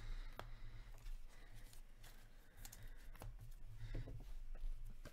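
Hands handling hockey trading cards and cardboard card boxes: faint rustling and a few light clicks and taps over a steady low hum.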